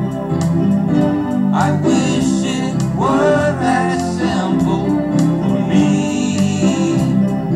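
A multitracked home-studio song recording played on a Casio keyboard, with a man's voice singing over the chords.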